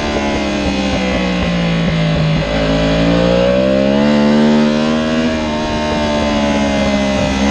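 Yamaha R1 superbike's crossplane inline-four engine heard from onboard at racing speed. The engine note falls over the first two and a half seconds as the bike slows for a bend, then rises as it accelerates out in second gear and levels off near the end.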